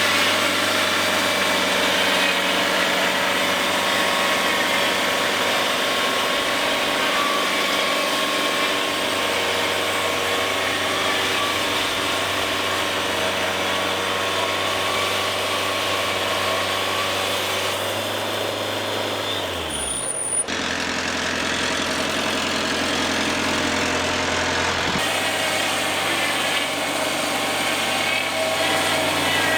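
Wood-Mizer portable band sawmill running with a steady engine drone. A little over halfway through, the low drone slides down in pitch and the sound breaks off briefly, then a similar steady machine sound carries on.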